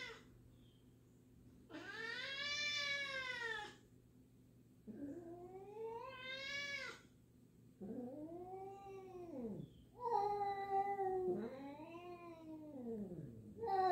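Two domestic cats yowling at each other in long, drawn-out calls, about five in a row, each lasting around two seconds and rising then falling in pitch: the wary warning yowls of cats meeting for the first time.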